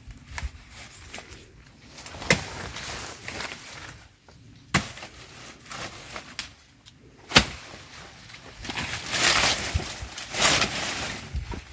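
A small, sharp hand cutting tool snipping through plant stems: a few sharp clicks a couple of seconds apart, then a longer rustle of leaves and stalks near the end.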